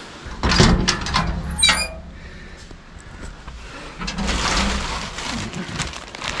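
Gear and a stuff sack rustling and being handled at a metal food storage locker. A short, wavering high squeal comes about one and a half seconds in.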